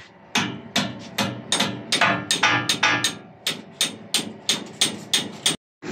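Steady series of hard hammer blows on the steel of a ship's cargo grab, about three a second, each with a short metallic ring, stopping abruptly near the end.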